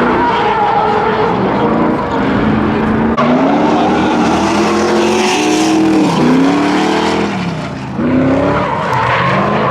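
Drift car engines revving up and down as the cars slide on and off the throttle, with tyre skidding noise underneath.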